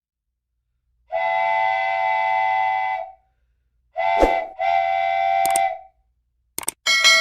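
A whistle-like horn sounding two long, even-pitched blasts, the first about two seconds and the second about one, with a sharp knock between them and a ringing, bell-like strike near the end.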